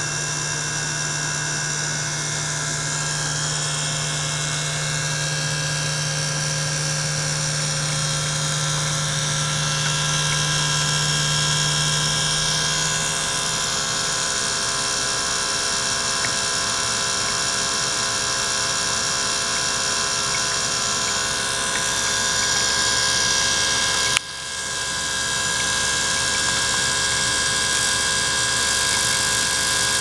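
Small liquid-circulation pump running steadily, a machine whine of many steady tones over a hiss. A low hum fades out about a third of the way in, and there is a single sharp click about three-quarters of the way through.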